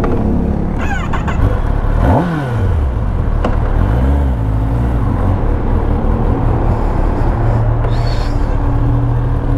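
Motor vehicle engines running, with a quick rise and fall in pitch about two seconds in and a couple more swells around four seconds, then a steady low hum.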